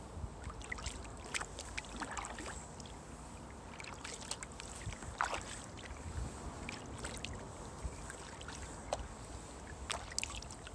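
Kayak paddle dipping and pulling through calm water, with irregular splashes and drips from the blade, over a low rumble.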